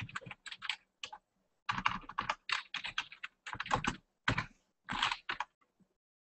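Typing on a computer keyboard: quick bursts of keystrokes with short pauses between them, stopping about five and a half seconds in.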